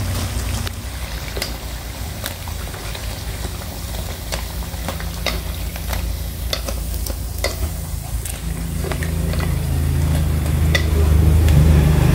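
Battered banana pieces deep-frying in hot oil in a wok: a steady sizzle with scattered sharp crackles and clicks as they are lifted out with a wire strainer and chopsticks. A low hum underneath grows louder in the second half.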